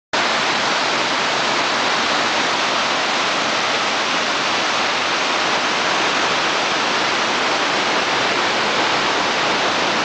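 Waterfall rushing steadily, water pouring down past old mill water wheels into a pool; the sound cuts in suddenly at the start.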